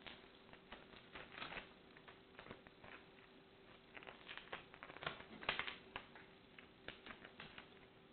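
Shells of hard-boiled eggs being cracked and peeled off by hand: faint, irregular little crackles and clicks, a few a second, over a faint steady hum.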